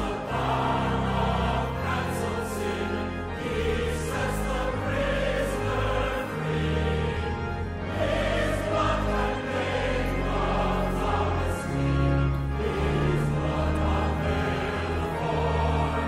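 A church choir sings with instrumental accompaniment, with held low bass notes under the voices.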